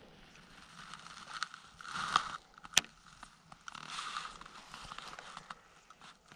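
Baitcasting reel cranked in two short spells, slowly working a lure back, with a single sharp click between them.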